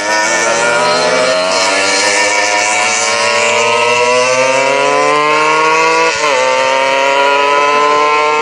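Motorcycle engine accelerating hard, its pitch climbing steadily, with a brief drop about six seconds in as it shifts up a gear before it climbs again.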